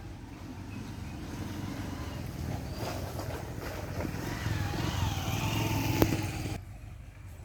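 A motor vehicle's engine, likely a passing motorcycle, runs with a low rumble that grows steadily louder. A sharp click comes about six seconds in, and the sound cuts off abruptly just after.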